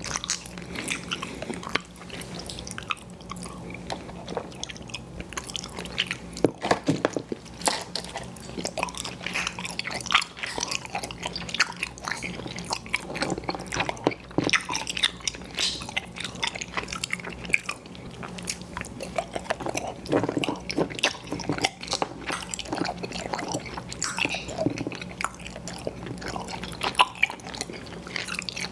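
Close-miked chewing of soft, chewy candy and snack cake: a steady run of wet, sticky mouth smacks and clicks, with a faint steady hum underneath.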